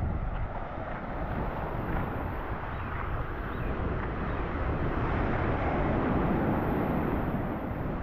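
Surf breaking and washing up a sandy beach, swelling to its loudest about six seconds in, with wind rumbling on the microphone.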